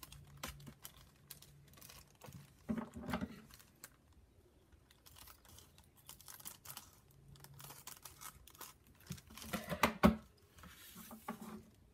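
Paper and a thin plastic bag being handled, unfolded and crinkled, with scattered rustles and small clicks; the loudest burst of crinkling and clicking comes about ten seconds in.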